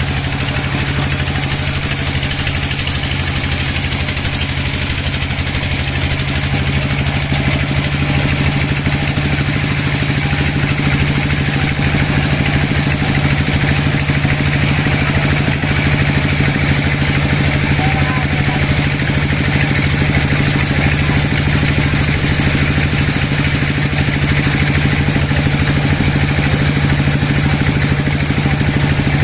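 Sawmill machinery running steadily, its engine droning at an even pitch, a little louder from about seven seconds in.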